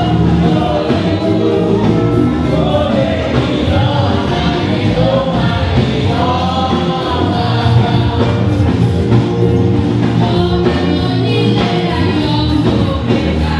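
Choir singing a gospel song with instrumental accompaniment and a steady beat.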